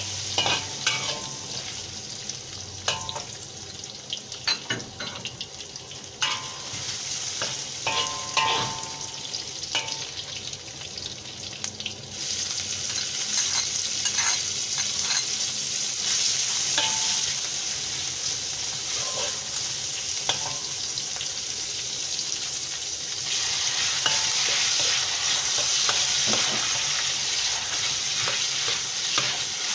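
Food sizzling in oil in a wok while a metal ladle stirs it, scraping and clinking against the wok. The sizzle grows louder about twelve seconds in, when black fungus goes into the pan, and louder again later as the frying goes on.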